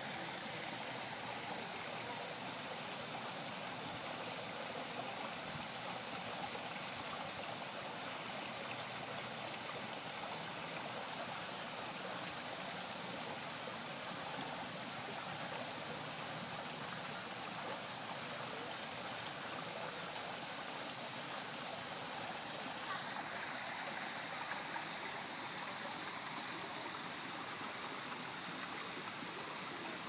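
Water of a small stream and waterfall running steadily over rocks, as a continuous hiss with a steady high-pitched edge; the splashing grows fuller about three-quarters of the way through.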